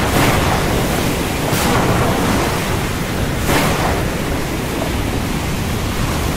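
Storm noise: a loud, steady rushing sound, swelling in two brief whooshes about one and a half and three and a half seconds in.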